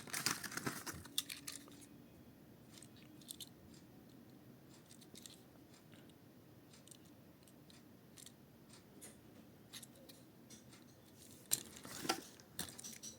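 Faint, scattered clicks and crinkles of a diecast toy car's cardboard-and-plastic blister packaging being handled and opened, busier near the start and again near the end.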